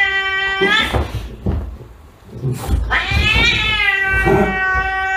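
A cat yowling in two long, drawn-out calls. The first fades out about a second in; the second starts about two and a half seconds in and rises, then falls, in pitch.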